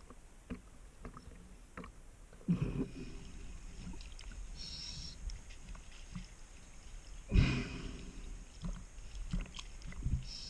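Underwater scuba breathing through a regulator: two loud rushes of exhaled bubbles, about two and a half seconds and seven and a half seconds in, with brief hissing inhalations between them. Scattered sharp clicks and taps run throughout.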